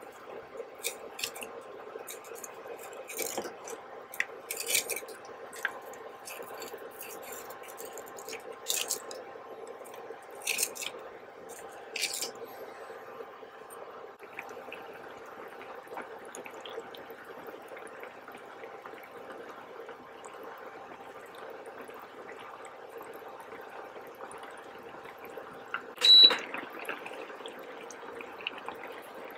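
Scallops sizzling steadily in a hot skillet, with sharp clicks of a wooden spoon and chopsticks against the scallops and pan over the first half. Near the end there is one brief, much louder clatter with a ringing ping.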